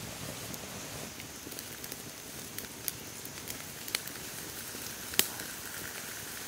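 Open wood fire of burning sticks crackling steadily, with a few sharp pops, the loudest about five seconds in.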